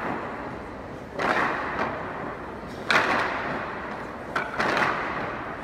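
A group of dancers' wooden clogs striking and clattering together on a hard floor: about five loud, irregularly spaced group stamps, each trailing off in the echo of a large hall.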